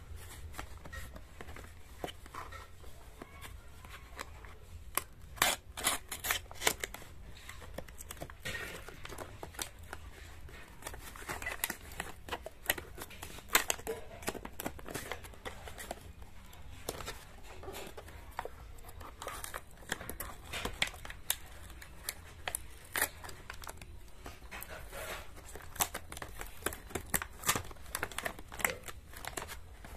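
Cardboard Amazon parcel being torn open and handled by hand: irregular clusters of sharp snaps, rips and crinkles of cardboard and paper, over a steady low hum.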